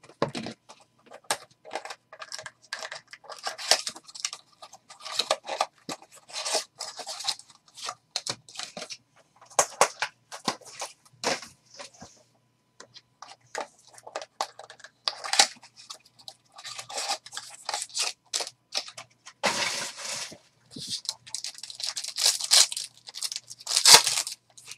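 A sealed box of 2021 SP Game Used hockey cards being opened by hand, its foil card packs crinkling and ripping: irregular crackling and scraping, with louder tearing near the end as a pack's foil wrapper is torn open.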